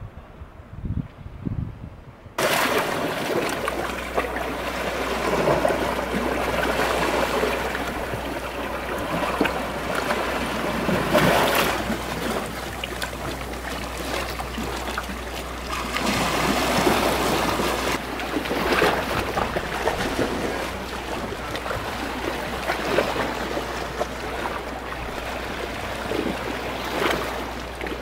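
Small sea waves lapping and splashing against shoreline rocks, in uneven surges that rise and fall, with a steady low hum underneath. It starts abruptly about two seconds in.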